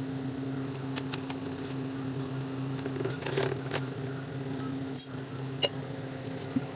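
A steady low hum, with scattered light clicks and knocks from a steel spoon and a plastic bucket being handled beside a gas burner, the sharpest a few seconds in and about five seconds in.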